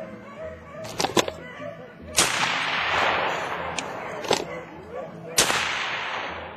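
Two loud gunshots about three seconds apart, each followed by a long echo that dies away. A few sharp clicks come about a second before the first shot.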